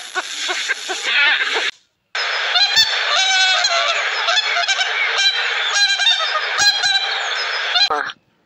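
Flock of geese honking loudly, many overlapping calls over a constant clamour. It is preceded by a short run of African penguins calling that cuts off about two seconds in.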